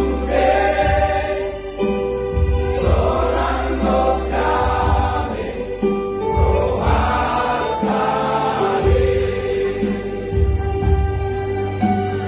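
Voices singing a Batak Christmas hymn in three-part harmony, over an instrumental backing with a pulsing bass.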